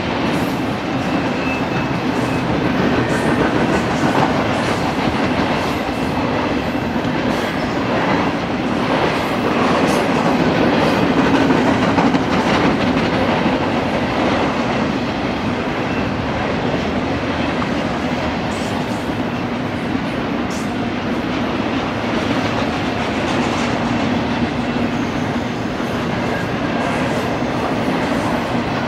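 Double-stack intermodal container train rolling past: a steady rumble and clatter of steel wheels on rail, with occasional clicks as the wheels cross rail joints.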